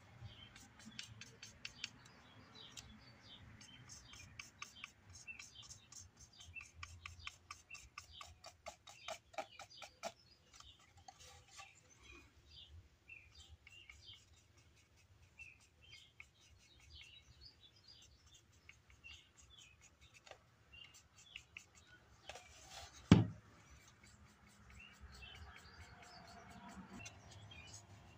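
Charcoal stick scratching over a carved fish's textured scales, a faint rapid ticking as it skips across the scale ridges. One sharp knock sounds about five seconds before the end.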